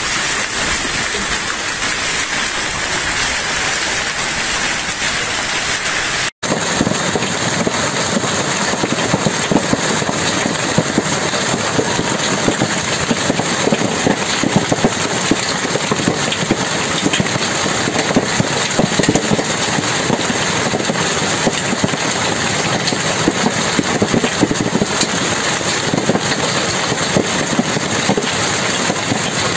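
Hailstorm: a steady hiss of hail and rain falling on a street, then, after a sudden cut about six seconds in, a dense crackle of hailstones pelting down, heard from under an awning.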